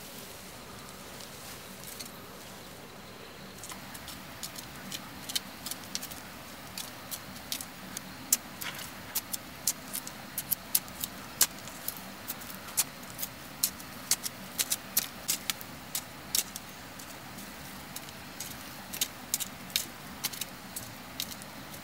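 Small metal knife blade stabbing and scraping into dry, stony soil during hand digging: irregular sharp clicks and scrapes, sometimes several a second, starting about four seconds in.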